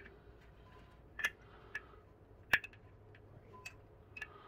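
Light, scattered clicks and ticks from handling a window blind's tilt wand where it hooks onto the headrail. There are about half a dozen separate clicks, the loudest about halfway through.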